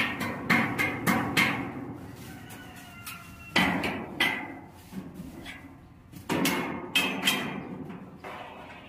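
Hammer blows on the steel plate and ribs of a welded steel boat hull. Four quick strikes come first, then after a pause a few more strikes in small groups, each leaving the metal ringing briefly.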